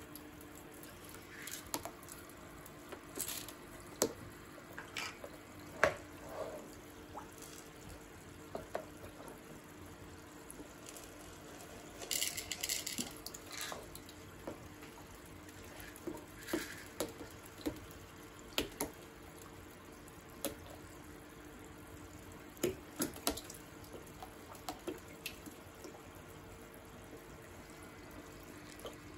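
Water in small, bubbling turtle tanks: scattered drips, small splashes and light taps, with a longer splash about twelve seconds in, over a steady low hum.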